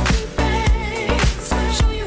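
Funk-pop music with a steady beat.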